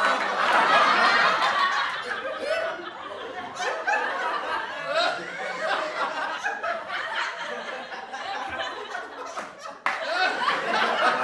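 Several people laughing and chuckling at once, their voices overlapping with some chatter. The laughter is loudest at the start. It cuts abruptly about ten seconds in to another burst of group laughter.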